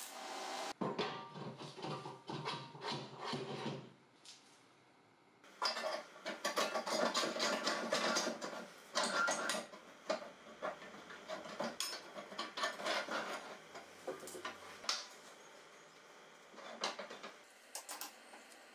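Steel pivot pin and hinge bracket being worked by hand: irregular scraping, rubbing and clinking of metal on metal in two busy stretches with a short pause between them, then a few sparser clicks. A welding hiss stops within the first second.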